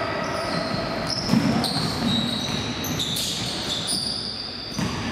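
Basketball game on a hardwood court: the ball bouncing and sneakers squeaking on the floor, with players' voices, echoing in a large gym hall.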